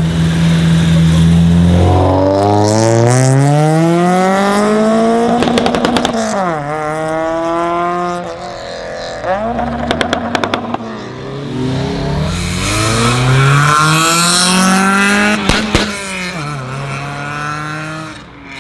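Modified Honda Civics accelerating hard away, one after the other. Each time the engine note climbs steeply through the revs and drops at the upshift, with sharp exhaust crackles and pops around the shifts. A steady lower engine note is heard at the start and again near the end.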